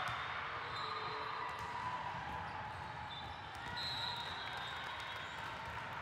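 Echoing gym ambience during an indoor volleyball match: a steady din of voices, with short high squeaks and a few sharp knocks from play on the court.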